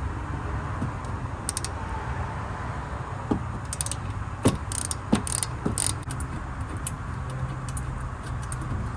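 Hand ratchet on a 17 mm rear brake caliper bracket bolt, a few sharp metallic clicks and clinks between about three and six seconds in as the bolt is backed out. A steady low hum runs underneath.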